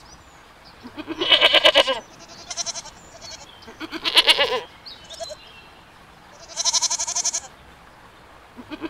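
Goats bleating: three loud, wavering calls about a second long each, with two shorter, fainter bleats between them and another call starting at the end. Some calls are higher-pitched than others.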